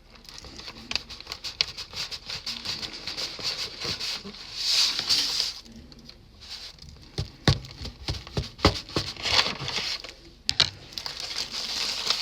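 Paper sandwich wrapper rustling and crinkling in hands, with a cluster of sharp knocks in the middle as a sausage, egg and cheese breakfast sandwich is cut with a knife.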